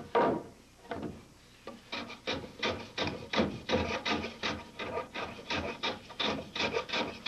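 Hand saw cutting through a wooden timber: two separate strokes at first, then a steady run of about three strokes a second.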